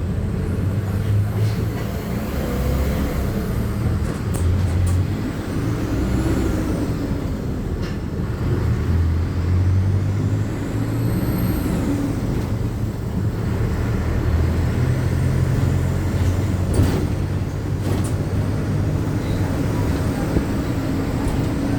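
Inside a moving city bus: the engine rumbles low and steady, its pitch rising and falling as the bus changes speed. Sharp rattles and clicks from the cabin come now and then, along with a few faint high whines that rise and fall.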